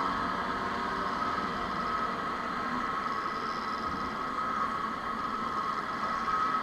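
Steady drone of two-stroke motorcycle engines running, with a constant high-pitched hum over a noisy background; no revving.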